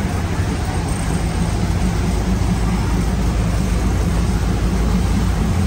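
Diesel railcar train running, a steady low engine-and-rail drone.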